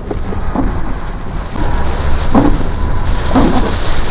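Heavy rain and storm wind beating on a vehicle, with a steady low rumble of wind buffeting and a few short louder gusts or thumps.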